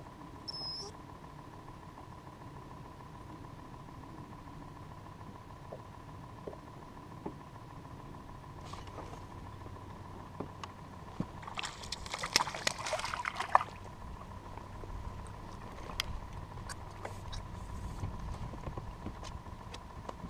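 Scattered clicks and knocks from an angler working a rod and reel on a small fishing boat, over low wind-and-water rumble and a steady faint tone. About twelve seconds in there is a two-second burst of rapid crackling, while a crappie is being fought and landed.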